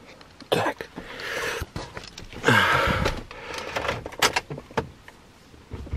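Car door being opened and shut as someone climbs in, with knocks and clicks: a sharp knock about half a second in, a longer scraping stretch around the middle, and another click a little after four seconds.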